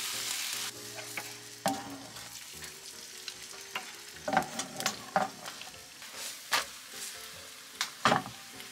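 Bánh xèo batter sizzling as it fries in a pan, loud at first and then dropping to a softer, steady sizzle after under a second. Sharp clicks and knocks of a utensil against the pan come throughout.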